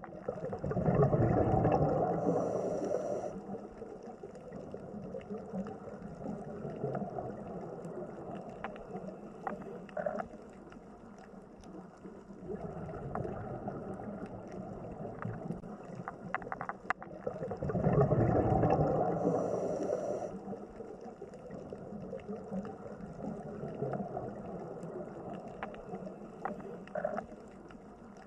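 Underwater ambience: a steady muffled wash of water with a low gurgling rumble that swells up twice, near the start and again about two-thirds of the way through, each swell closing with a short high hiss, and scattered faint clicks throughout.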